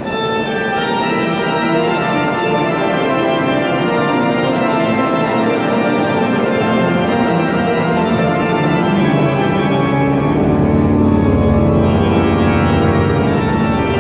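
Church pipe organ playing sustained full chords, with deep bass notes coming in about ten seconds in.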